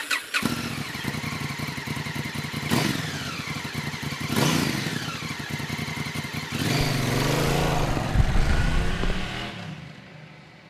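Honda Africa Twin CRF1000L motorcycle's parallel-twin engine starting up and idling, with two quick throttle blips a few seconds in. About two-thirds of the way through it gets louder and its pitch wavers, then the sound fades out.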